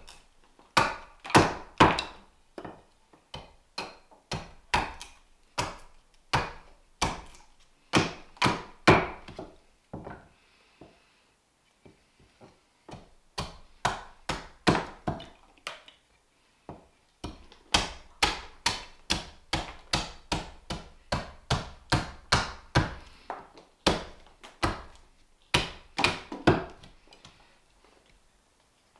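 Small carving axe hewing a green-wood spoon blank on a chopping block: a steady run of sharp chops, about two a second, broken by a few short pauses.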